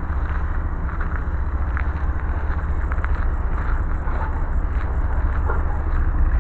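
Coal train hopper cars rolling past close by: a steady low rumble of steel wheels on the rails, with scattered light clicks.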